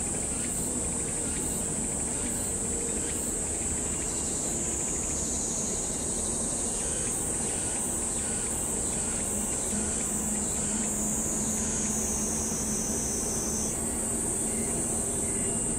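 A steady, high-pitched insect chorus over a continuous low rumble from a taxiing Airbus A380's Rolls-Royce Trent 970 engines at idle.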